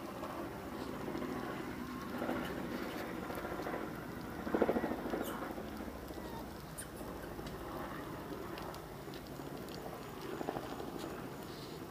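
Outdoor ambience with light rustling and pattering around a troop of macaques, with a brief louder sound about four and a half seconds in.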